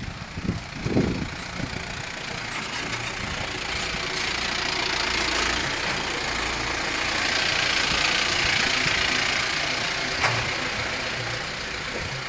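A motor vehicle's engine running, growing louder through the middle and easing off toward the end, with a couple of brief low thumps near the start.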